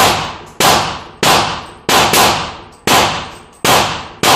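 A rapid string of gunshots, about eight in four seconds, two of them close together about two seconds in, each shot ringing off before the next.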